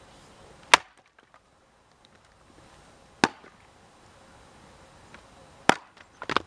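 Jersey-pattern axe chopping into wood: three sharp strikes about two and a half seconds apart, the first the loudest, then a couple of quicker, lighter knocks near the end.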